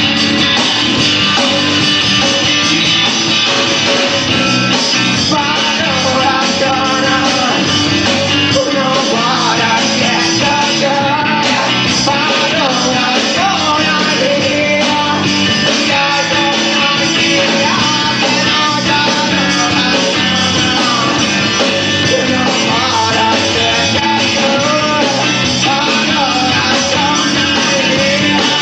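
A rock band playing live with electric guitars, bass and drums, loud and unbroken. A singer's voice comes in over the band about a third of the way through.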